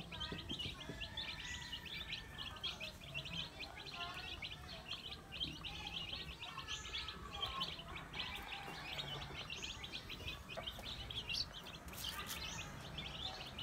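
Native chicken chicks peeping: many quick, high-pitched chirps from several chicks at once, running on without a break, with a few lower calls now and then.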